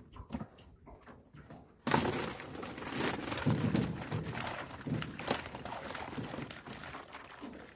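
Fish trap being handled: a few light knocks, then about two seconds in a sudden loud spell of splashing, knocking and rustling as fish thrash inside the full trap, lasting several seconds.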